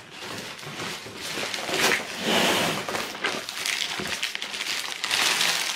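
Black plastic bag rustling and crinkling as it is pulled off a cardboard box, with the box being handled; the rustling swells louder a couple of times.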